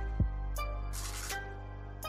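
Background music: a deep held bass note under a few struck melodic notes, with a short rising hiss about a second in.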